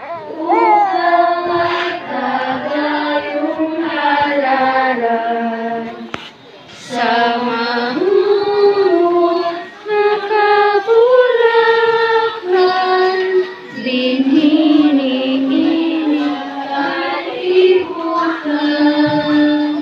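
A group of female and children's voices singing a slow, chant-like song in unison, with long held notes.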